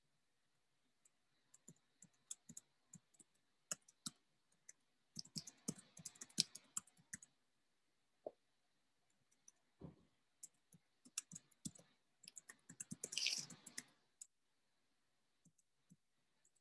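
Faint clicking and tapping at a computer keyboard and mouse: scattered single keystrokes, with two denser flurries about five and twelve seconds in.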